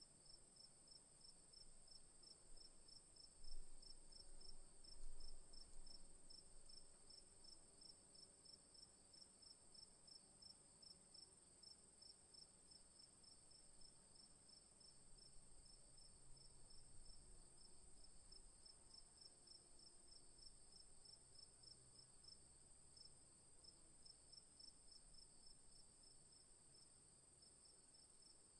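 Faint chirping insects: a steady high trill with an evenly repeated higher chirp beneath it, over near-silent room tone. A few soft knocks come about three to five seconds in.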